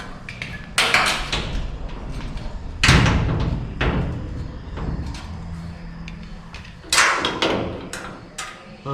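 Truck door being swung shut and latching several times, metal clunks and thuds, the loudest a heavy slam about three seconds in.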